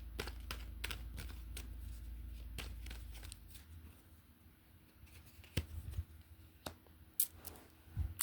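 Tarot cards being handled and shuffled: scattered light snaps and clicks of card stock. A low hum underneath stops about three seconds in.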